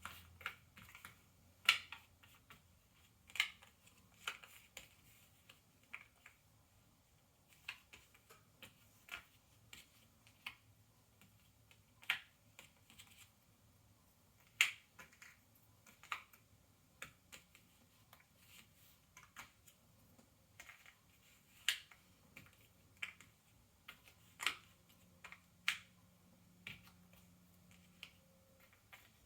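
Ravensburger 300-piece cardboard jigsaw puzzle pieces being picked up, set down and pressed into place on a tabletop. They make irregular light clicks and taps, with a few sharper clicks among them.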